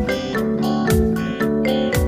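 Background music: plucked acoustic guitar with a steady beat.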